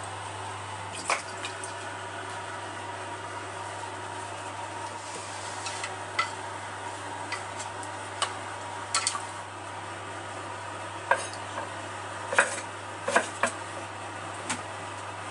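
Kitchen handling sounds from seasonings being poured from a porcelain spoon and mixed into raw pork spareribs in a pot: scattered light clinks and knocks of spoon and pot, several clustered in the second half, over a steady low hum.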